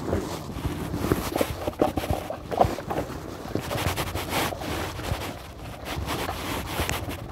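Seawater splashing and sloshing in irregular bursts as hands and a fish plunge into a crate sitting in the shallows, with wind rumbling on the microphone.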